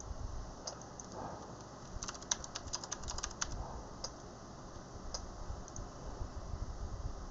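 Typing on a computer keyboard: a quick run of keystrokes from about two to three and a half seconds in, with scattered single clicks before and after.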